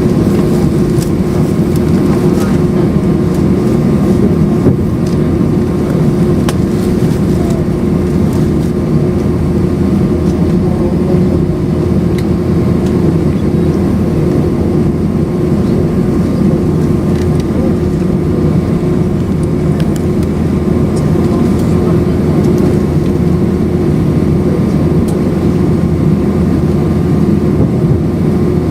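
Airbus A319-131's IAE V2500 turbofan engines running steadily, heard from inside the passenger cabin as a constant drone with a couple of held tones and scattered light clicks and rattles.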